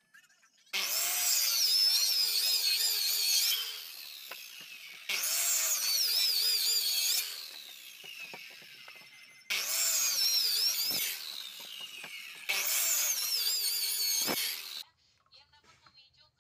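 Handheld electric circular saw cutting wood in four short passes. Each pass is a loud, wavering whine that starts abruptly, then falls away as the blade winds down.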